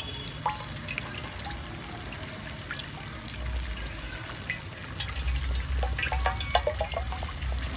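Cooking oil poured from a plastic bottle into a metal wok, a thin stream trickling into the pan. A low rumble comes in a few seconds in, with a few light clicks near the end.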